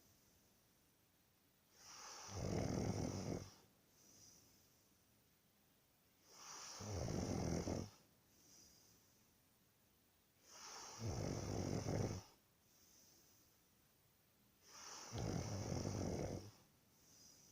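A person snoring: four loud snores, one about every four seconds, each lasting about a second and a half, with a fainter sound shortly after each.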